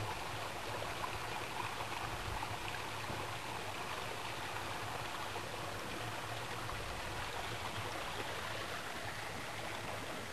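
Steady rushing of a small stream running over rocks.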